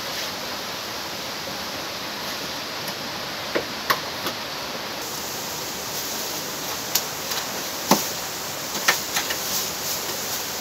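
Steady rushing of river water, with a few sharp clicks and knocks scattered through it, the loudest about 8 seconds in.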